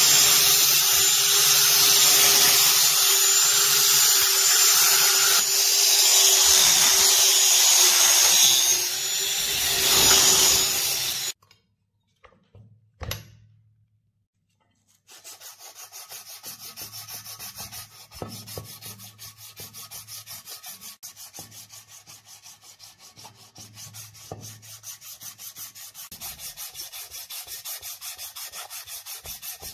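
An electric grinder's spinning abrasive wheel runs with a steady whine while a rusty steel pistol part is ground against it; it cuts off suddenly after about eleven seconds. After a short near-silent pause with a single tap, a strip of abrasive cloth is pulled rapidly back and forth across the pistol's steel slide held in a vise, making an even, rhythmic rubbing.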